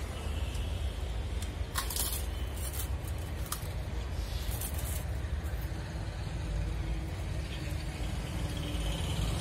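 Eating sounds of puffed crackers being bitten and chewed, with several short sharp crunches in the first half, over a steady low rumble.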